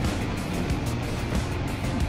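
Background music, with a motorcycle engine running underneath.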